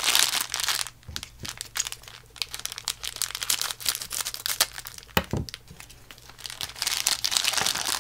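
Thin clear plastic bag crinkling and crackling as fingers handle it and pull at its opening. The crinkling is densest at the start and near the end, with a couple of soft knocks about five seconds in.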